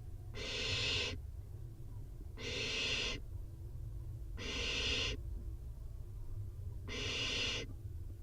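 Barn owl nestlings giving their hissing, snore-like begging call four times, each hiss under a second long and about two seconds apart, over a steady low hum.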